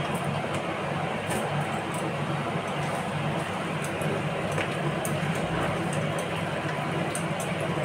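A steady background hum and hiss runs throughout. Faint scattered clicks and squelches come from a hand mixing raw chicken into a curd-and-spice marinade in a steel bowl.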